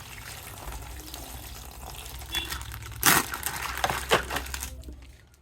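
Crinkling, rustling handling noise, with two louder strokes about three and four seconds in, fading near the end.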